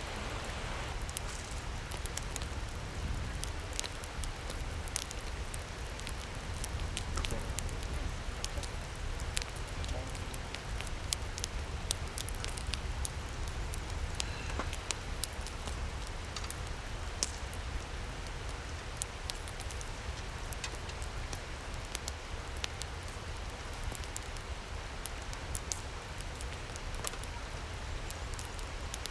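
Steady rushing of a valley stream, with many sharp little pops and ticks scattered throughout, like food sizzling on a grill.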